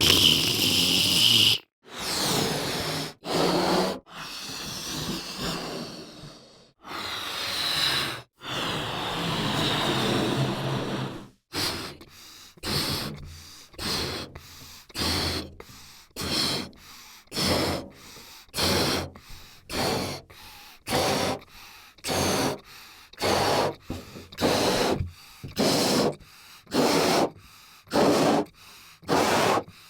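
A string of separate short cartoon sound effects from Adobe Audition's free library, each cut off by a brief silence. The first few are a second or more long; from about eleven seconds in they come as short noisy hits, roughly one every half second.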